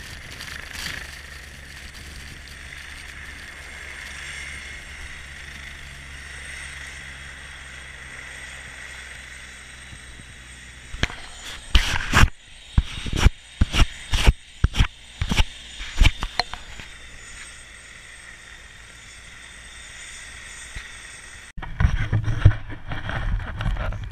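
Wind blowing steadily over an action camera's microphone in a whiteout. About halfway through, a quick run of loud knocks follows as the camera is handled. Near the end, an abrupt cut brings a louder, rough rumble of riding over snow.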